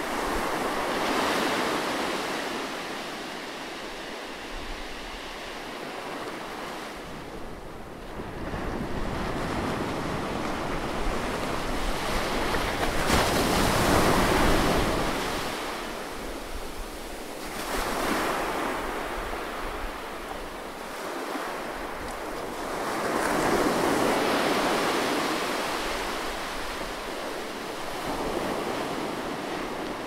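Gentle sea surf breaking and washing up a sandy beach, rising and falling in slow surges every several seconds, the loudest about halfway through.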